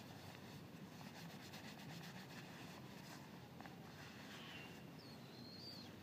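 Near-silent night ambience over a faint low hum. Just before the end comes a brief, thin, high-pitched call that dips and then rises, with a fainter short call a little before it.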